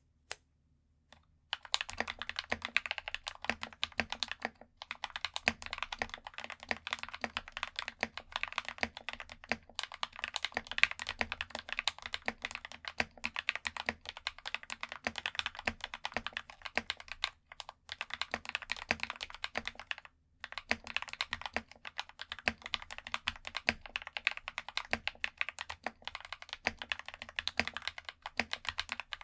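Fast continuous typing on an RK68 Pro mechanical keyboard with AKKO CS Vintage White linear switches: dense, snappy keystroke clicks, with a few brief pauses.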